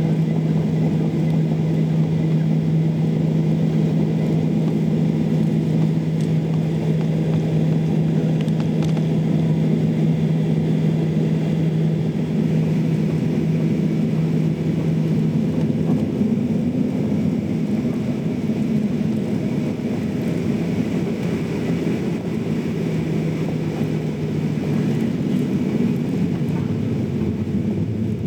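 Steady cabin noise inside a Boeing 737-800 airliner on the ground with its engines at low power, with no run-up. A low steady hum changes about halfway through and fades near the end.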